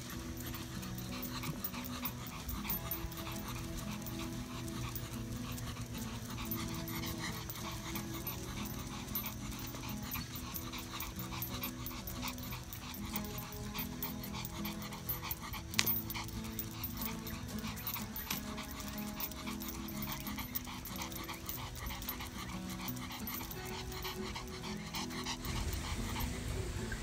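Pomeranian panting as it walks, over steady background music, with one sharp click about sixteen seconds in.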